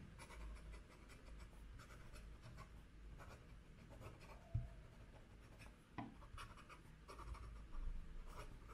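Faint scratching of a fountain pen's steel Jowo nib, turned upside down for reverse writing, moving across paper, with a couple of light taps in the middle. Reversed like this, the nib lays down almost no ink.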